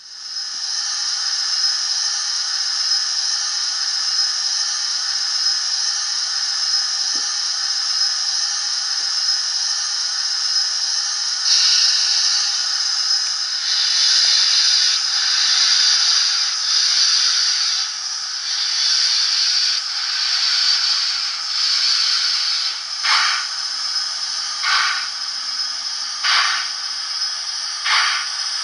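Hornby A4 Bittern model locomotive's LokSound V4 DCC sound decoder playing steam sounds through its small speaker, thin with no low end. A steady hiss of steam grows louder a little under halfway in. Near the end, slow, evenly spaced chuffs begin, about one every second and a half, as the engine starts to move.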